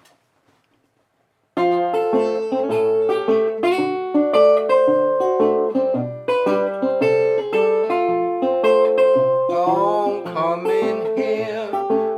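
Guitar playing the opening of a ragtime-style tune, with many quick plucked notes, starting about a second and a half in after near silence. A voice comes in over the guitar near the end.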